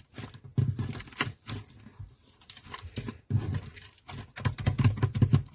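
Pink slime being squished and kneaded by hand: irregular runs of wet clicks and pops, in several bursts with short pauses between them.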